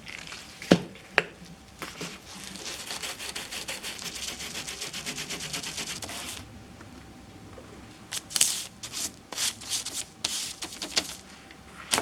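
Scrubbing of a greasy kitchen ventilation-fan part: a run of rapid, even back-and-forth strokes, then more irregular scrubbing near the end, with two sharp knocks about a second in.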